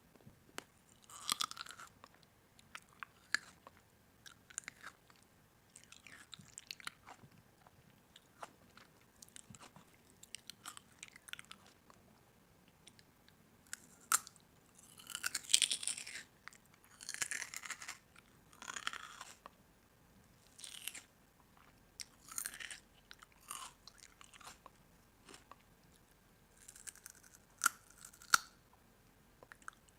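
Someone biting and chewing crunchy food, close to the microphone, in irregular crunching bursts with sharp cracks, louder in the second half.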